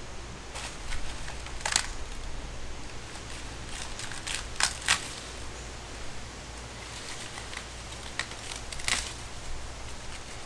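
Dry corn stalk and husks crackling as an ear of popcorn corn is picked, with a handful of sharp crackles and snaps over a low steady rumble.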